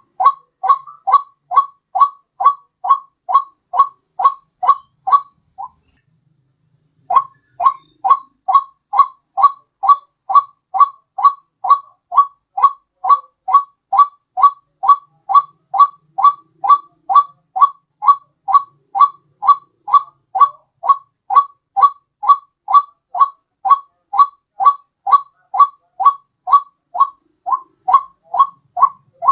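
White-breasted waterhen (ruak-ruak) call played as a bird lure: a fast, even run of identical short rising notes, about two and a half a second. It breaks off for about a second and a half early on, then resumes.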